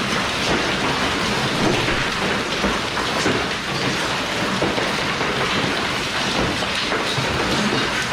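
Heavy rain pouring down steadily, a dense patter of drops striking surfaces.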